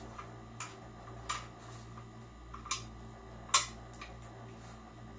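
A handful of light clicks and clinks from an office chair's metal seat plate and tilt mechanism being handled and turned over, the sharpest about three and a half seconds in, over a steady low hum.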